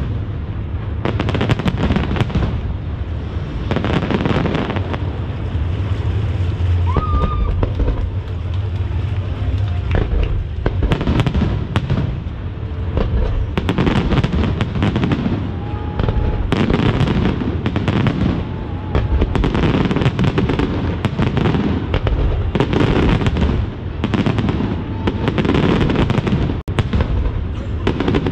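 Large aerial fireworks display: shells bursting in quick succession, a dense, unbroken barrage of bangs and crackles.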